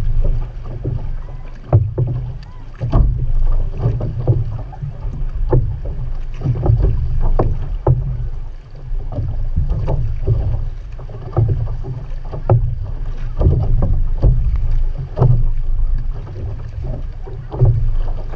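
Outrigger canoe under way with its crew paddling: a steady low rumble of water and wind along the hull, with a sharp splash about once a second as the paddles strike the water. The sound is muffled.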